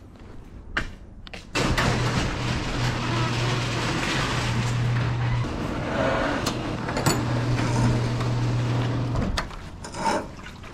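Electric garage door opener running as the sectional door closes: a steady motor hum over a rumble, starting suddenly about a second and a half in and stopping about nine seconds in.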